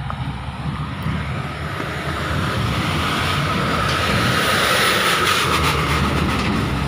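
Light single-axle dump truck's diesel engine running as it drives by, growing louder to a peak about four to five seconds in as it passes close, then easing off.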